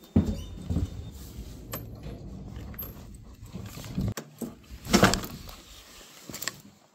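Low rumbling and scattered knocks and clicks, then, after an abrupt cut, a short loud clatter about five seconds in and another near the end as a hotel room door is unlocked with a key card and pushed open.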